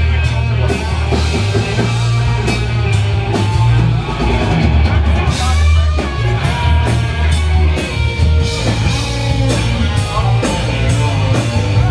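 Loud rock music with a drum kit, heavy bass and guitar playing continuously.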